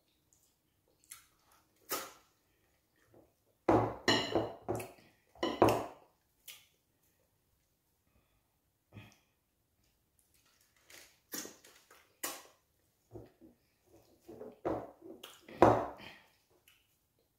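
Eating sounds close on a clip-on microphone: irregular clusters of short wet smacks and clicks as wheat fufu and banga soup are eaten by hand, with quieter gaps between mouthfuls.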